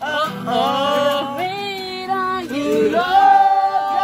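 A group of young men singing a song together in loud, long-held notes, with an acoustic guitar being strummed beneath the voices.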